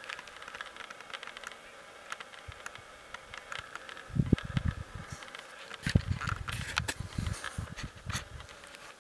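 Insects buzzing steadily. From about four seconds in, low rumbling knocks of the camera being handled and swung.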